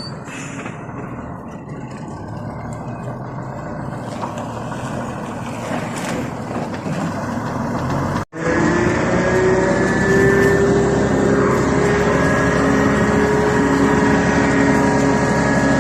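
Heavy vehicle engine running steadily. After a brief cut about eight seconds in, it runs louder, with a slowly rising pitch as it speeds up under load.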